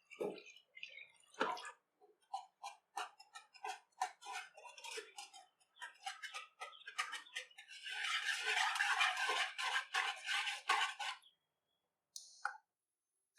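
Repeated short strokes of kitchen utensil work, about two a second, with a denser, noisier stretch from about eight to eleven seconds, then a short sound near the end.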